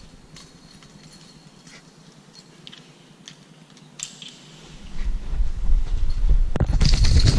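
A few light clicks and taps on a dog's harness-mounted action camera while a hand holds the harness. From about five seconds in comes a loud rumbling rustle as the camera is jostled by the dog moving off, growing louder near the end.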